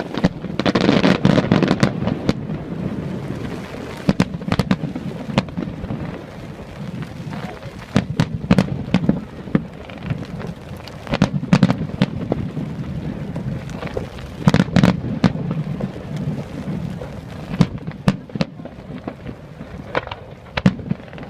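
Fireworks going off: many sharp bangs, with dense low crackling rumbles swelling up every few seconds.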